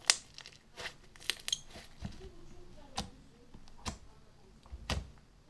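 Slime being pressed and played with by hand, giving a series of sharp, irregular pops and clicks, about seven in all, the loudest right at the start.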